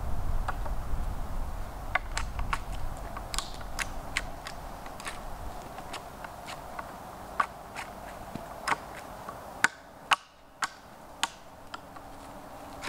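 Irregular sharp clicks and snaps, a dozen or more at uneven intervals, over a low rumble that fades after the first few seconds.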